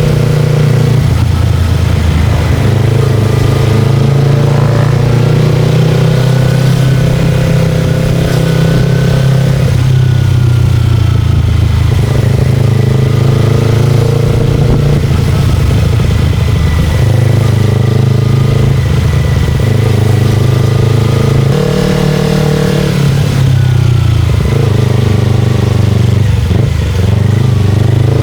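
Motorcycle engine running loud and continuous while riding, its pitch rising and falling several times as the revs change through the ride.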